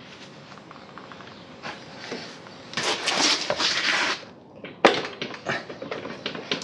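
Hand tools working on a motorcycle's rear suspension link bolts: scraping and clanking, one sharp crack about five seconds in, then a run of quick ticks. The links are under heavy load from the bike's weight.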